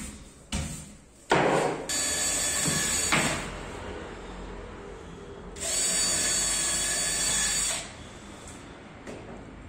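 Cordless drill running in two spells, the first about a second and a half long and the second about two seconds, its bit pressed into a laminated wood-effect board. Two sharp knocks come before the first spell.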